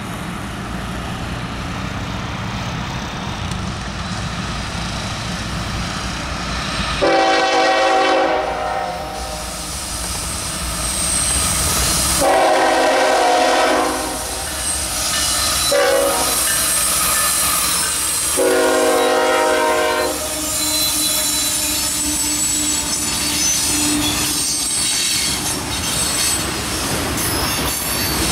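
Norfolk Southern freight train led by two GE ES44AC diesel locomotives approaching with a low engine rumble. Its multi-chime air horn then sounds long, long, short, long, the standard grade-crossing signal. After that come the loaded tank cars' wheels rolling over the rails as the train passes.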